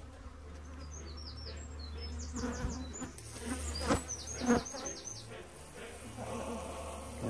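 Honeybees buzzing around a hive that is being worked, a steady hum, with a few sharp knocks about three, four and four and a half seconds in.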